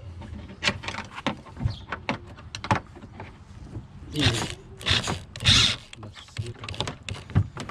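Hardware being fitted and tightened onto a plastic canoe: scattered clicks and knocks, with three short, louder rasping bursts about halfway through.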